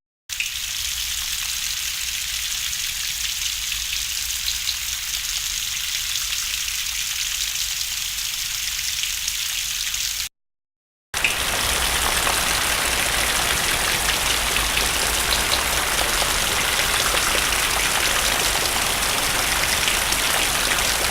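Two abstract sound effects of steady hissing, crackling noise, like rain or static, each about ten seconds long, with a short silent gap between them; the second is fuller and louder in the low end.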